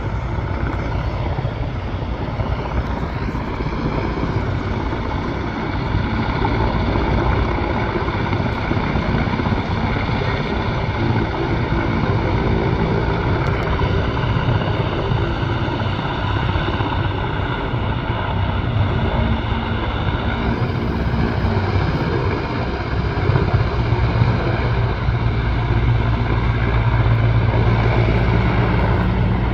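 Mil Mi-17 helicopter running on the ground: a steady turbine whine over the dense drone of the turning rotor, growing a little louder near the end.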